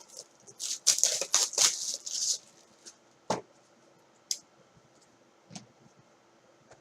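Packaging of a trading card box being torn and rustled open for about two seconds, followed by a few light taps and clicks as the cards and box are handled.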